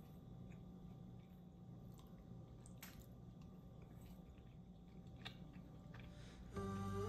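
Faint, scattered soft clicks and small crunches of food being eaten, heard close to the microphone. Gentle background music comes in near the end.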